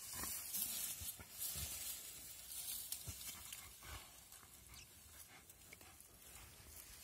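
Two dogs play-fighting in dry grass and loose soil: rustling and scuffling, with a handful of short low growls in the first four seconds.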